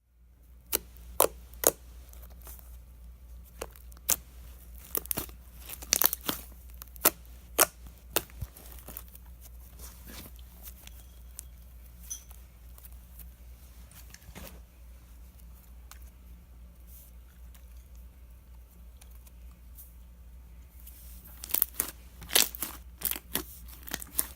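Freshly activated homemade slime being kneaded and stretched by hand, giving off irregular sharp pops and crackles. The pops come in clusters in the first few seconds and again near the end, with quieter squishing between.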